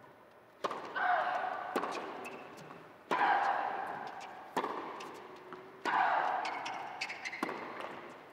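A tennis rally on an indoor hard court: six racket strikes on the ball about 1.3 seconds apart, alternating louder and fainter as the two ends trade shots. Each hit rings on in the echo of the large hall.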